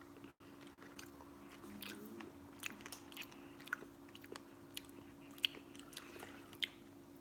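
Faint, irregular crunching clicks of someone chewing food close to the microphone, over a steady low hum.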